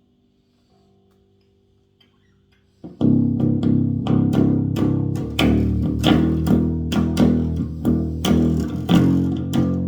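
Electric bass guitar played freestyle for strange noises: after about three seconds of faint hum, loud struck notes ring out in a rapid, uneven series, two or three attacks a second, each ringing with many overtones.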